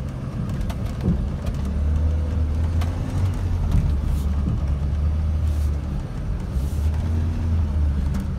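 GMC C5500 medium-duty dump truck's engine running steadily as the truck drives slowly, heard from inside the cab as a low hum, with a few faint clicks.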